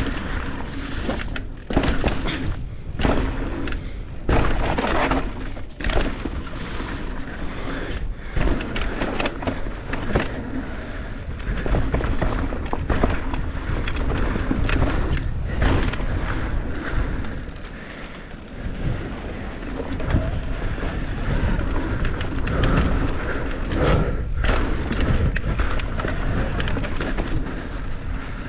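Mountain bike riding down a dirt singletrack: tyres rolling and crunching over dirt, leaves and stones, with the bike rattling and knocking over bumps, under a steady low rumble.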